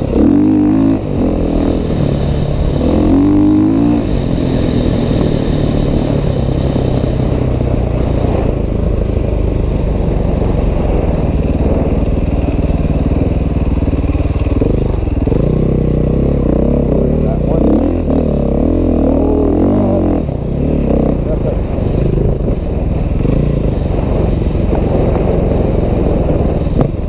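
Dirt bike engine running under changing throttle on a rough trail, its pitch rising and falling as the rider works the throttle.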